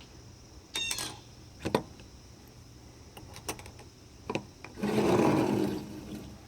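A few sharp metal clicks and a scraping rub, about a second long near the end, from handling a machined metal sonic screwdriver prop replica with interchangeable heads.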